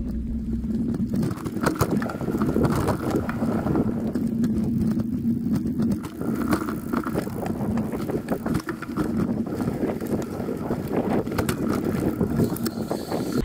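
Riding a bicycle: wind buffets the microphone over the rumble of the tyres, with frequent small knocks and rattles from the bumpy ride.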